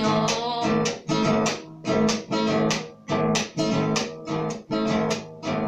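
Acoustic guitar strummed in a steady rhythmic pattern, each group of strokes followed by a short break about once a second.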